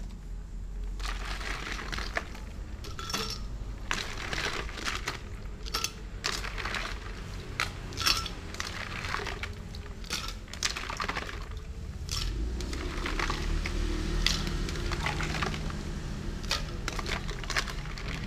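Ice cubes tipped from a plastic container into a blender jar, clattering and knocking against the jar and each other in many irregular clicks.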